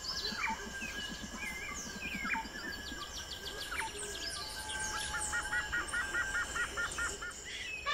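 Forest ambience of several birds singing and calling: assorted chirps and whistled sweeps, with a quick run of about ten repeated notes in the second half.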